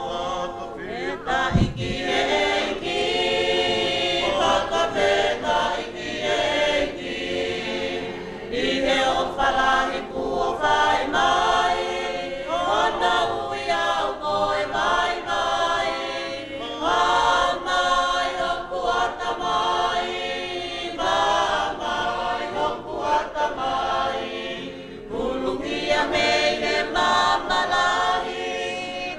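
Congregation singing a hymn together in many voices, in long held phrases with short breaths between. A low bump sounds about one and a half seconds in.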